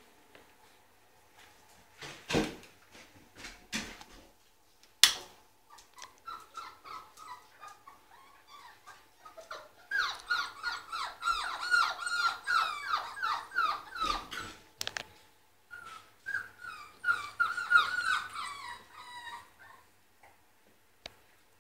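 Puppies whimpering and yelping in a rapid run of short, high, falling cries, with a few knocks before the cries begin.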